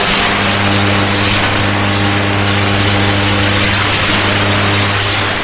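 Shortwave radio reception on an AM broadcast channel: a steady rush of hiss and static with a low, steady hum underneath, before any programme audio is heard.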